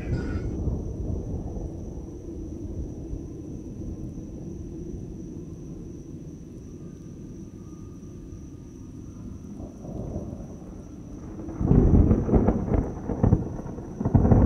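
Thunder: a low rolling rumble that slowly fades, then a loud crash of thunder about twelve seconds in, with another starting just before the end.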